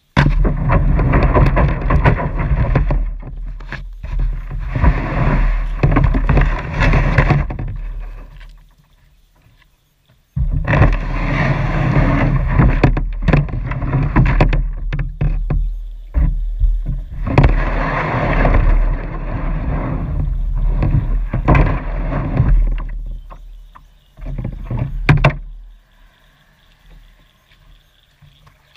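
Loud rushing noise with a heavy low rumble from wind and water around a small boat on the river, broken by a few knocks. It drops out around nine seconds in, returns suddenly a second later, and dies away near the end.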